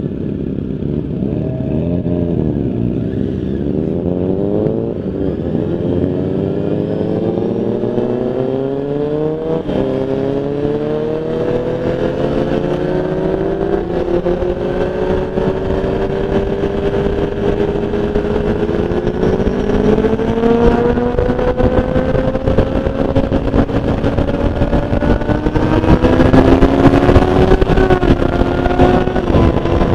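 A 2003 Honda CBR F4i's 600cc inline-four engine pulls away and accelerates, its pitch climbing and dropping back at each upshift. A second motorcycle's engine runs alongside in the first few seconds. Wind and road noise grow louder as speed builds toward the end.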